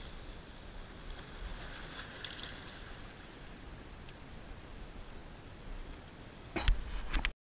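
Sea water washing against the rocks of a breakwall, a steady wash with a low rumble of wind on the microphone. Near the end come a few sharp knocks of gear being handled, then the sound cuts off suddenly.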